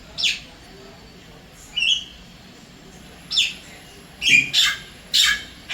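Javan myna calling: a series of about six short, harsh calls, several sweeping downward in pitch, with a quicker run of calls in the second half.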